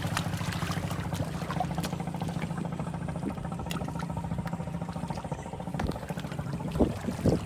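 Shallow seawater trickling and lapping over a coral-rock beach, full of small ticks and splashes, under a steady low hum that fades out about two-thirds through. Two low thumps near the end.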